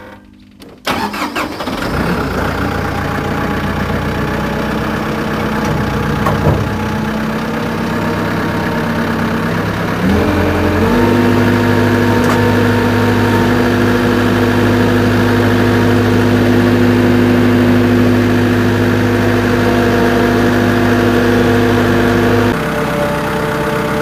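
Compact loader tractor's engine starting about a second in and settling into a steady idle. About ten seconds in it is throttled up to a higher steady speed, and it drops back near the end.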